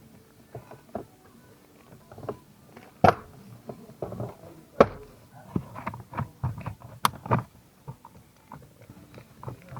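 Irregular clicks, clacks and knocks of hand work on a car's steering column and its parts, with three sharp, loud knocks about three, five and seven seconds in.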